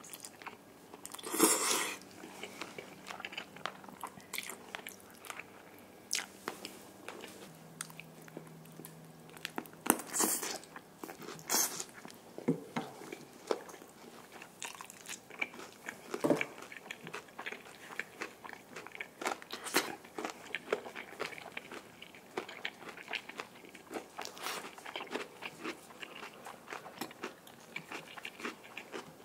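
Close-miked bites into crispy fried chicken: the battered crust crunches, then chewing with many small crackles. The loudest crunches come about a second and a half in and again about ten seconds in.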